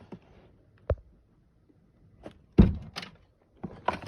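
A few separate knocks and thuds of plastic toys being handled and put down in a box, the loudest about two and a half seconds in.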